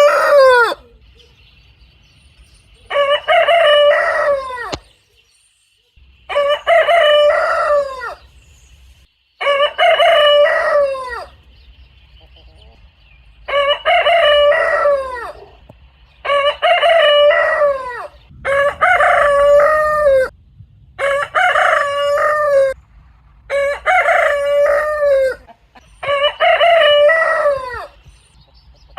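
Rooster crowing over and over, about nine full cock-a-doodle-doo crows, each about two seconds long and falling in pitch at its end, with short gaps between them.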